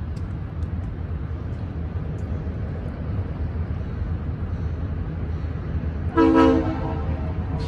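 Diesel locomotive's air horn sounding one short blast, a chord of several notes lasting about half a second, about six seconds in, over a steady low rumble.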